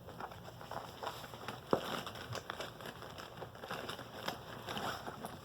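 Markers and a pencil pouch being handled: faint rustling and small clicks, with one sharper click a little under two seconds in.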